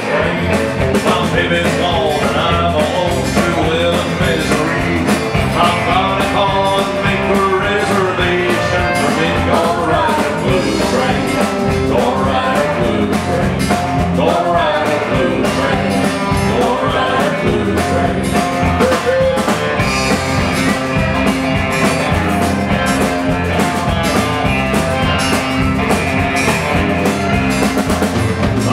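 Live country band playing a driving, steady-beat number, with strummed acoustic guitars, electric guitar, fiddle and drums.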